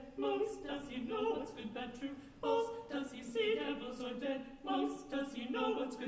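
Soprano, mezzo-soprano and contralto voices singing unaccompanied in short, detached sung phrases.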